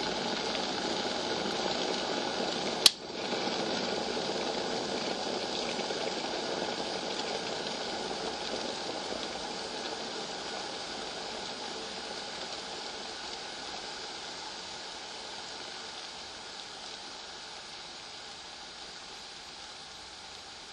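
Electric kettle boiling with a steady rushing bubble. About three seconds in, its switch clicks off sharply once. The boiling then slowly dies away.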